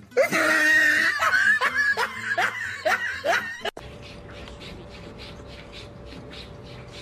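A person laughing in a quick ha-ha-ha run that cuts off suddenly about four seconds in. Then a cat lapping water from a drinking glass: soft, even laps about three a second over a faint steady hum.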